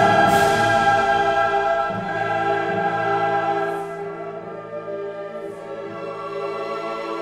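Background music: choir and orchestra holding long sustained chords that swell at the start, ease off around the middle and build again near the end.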